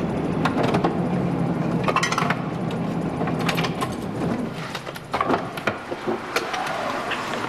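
Vehicle running, with steady engine and road rumble and scattered clicks and knocks.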